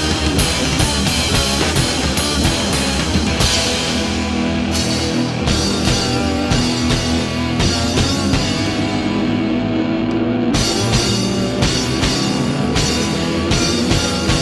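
Rock music with drum kit and guitars.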